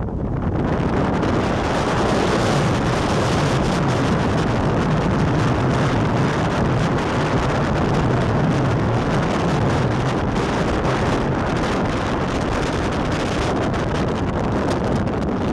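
Strong wind of 50 mph and more blowing across the camera microphone, a loud, steady rushing rumble.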